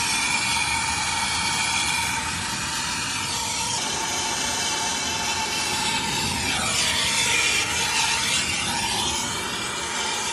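Soldering torch flame hissing steadily as it heats a 2-inch copper pipe joint for soldering, its tone dipping and rising once about seven seconds in.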